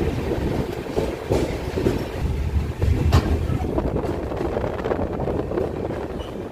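Passenger train running along the track, heard from aboard: a steady low rumble with a few sharp clicks and knocks from the wheels and coach.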